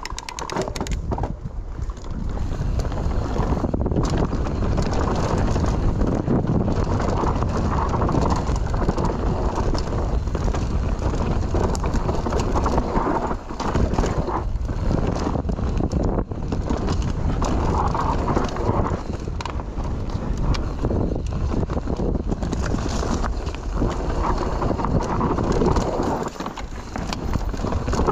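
Mountain bike riding down a dry, dusty dirt trail: steady tyre noise on the dirt, with the bike rattling and knocking over the bumps and wind on the camera microphone.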